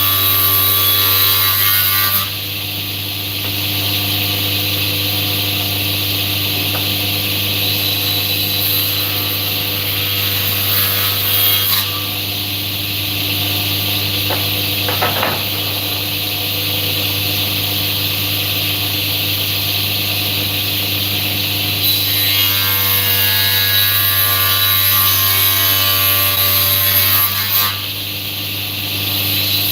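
An electric power tool running continuously on wood: a steady motor hum under loud cutting or abrading noise that shifts in character every several seconds.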